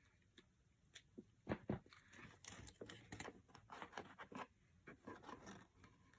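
Scissors snipping through thin cardboard, trimming a coin ramp: a run of faint, irregular cuts and crunches, two louder snips about a second and a half in.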